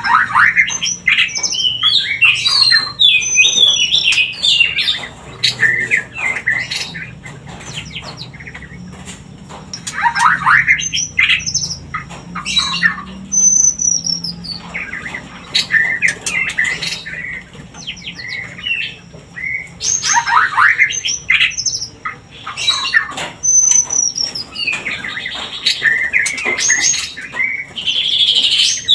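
White-rumped shama (murai batu) singing in phrases of varied whistles, glides and harsh chattering notes, with short pauses between phrases. This is the courtship song played as a lure to bring shamas into breeding condition.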